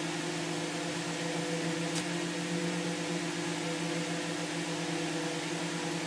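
Steady buzzy machine hum over a faint hiss, with one faint click about two seconds in.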